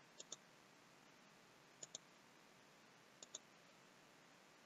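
Computer mouse clicked three times, each a quick pair of clicks, about a second and a half apart, faint over a steady low hiss.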